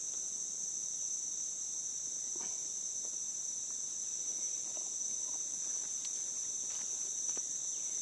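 Steady high-pitched insect chorus droning without a break. A few faint clicks and rustles of the camera being handled sound over it.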